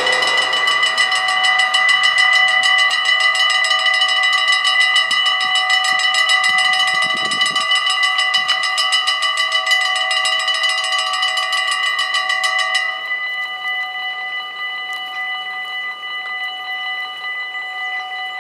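Several mechanical level-crossing bells on a Dutch automatic half-barrier crossing ringing continuously with a fast, even clatter of strikes. About 13 seconds in the ringing turns quieter and less bright but carries on, and a short low rumble comes through about seven seconds in.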